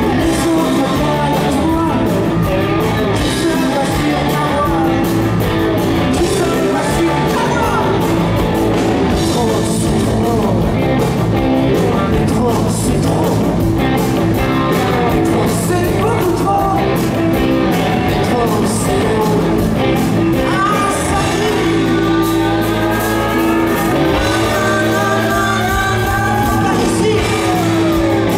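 Live rock band playing at full volume: electric guitar, bass and drums, with a voice singing over them, picked up from within the concert crowd.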